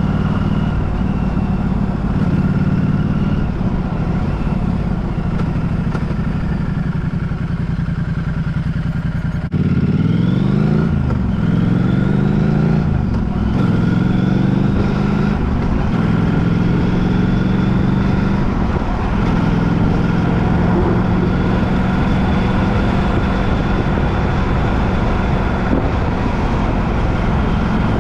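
Road vehicle's engine running while on the move. About nine and a half seconds in the sound breaks off briefly, and after that the engine note rises and falls several times, as with accelerating and shifting gears, before it settles to a steady run again.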